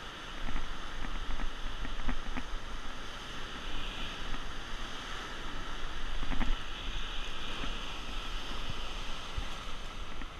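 Ocean surf washing and breaking over the rocks below, with wind buffeting the microphone in gusts. A few short clicks and knocks of handling come through it.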